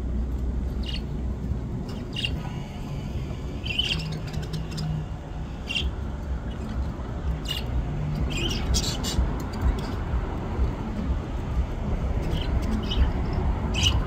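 Budgerigars chirping: short, scattered high chirps, a dozen or so, over a low steady rumble.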